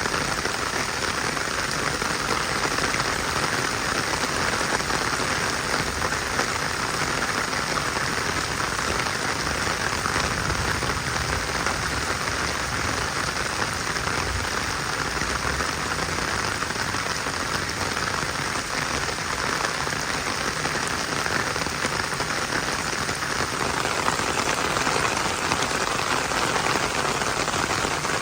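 Steady heavy rain pouring down, an even hiss with no thunder or change in strength.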